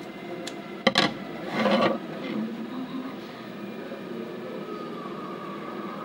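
A couple of sharp knocks on a wooden tabletop about a second in, then a short rustle of paper, as a sheet of paper and a pencil are handled. After that only a steady low background hum.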